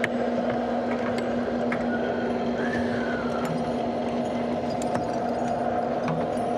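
Steady hum of spacecraft cabin ventilation fans inside the Soyuz, a constant low tone under an even whir. A few faint clicks of handling are heard over it.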